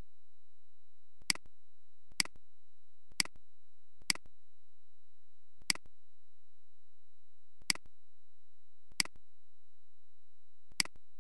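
Computer mouse clicking: eight short, sharp clicks at uneven gaps of one to two seconds, over a faint steady low hum.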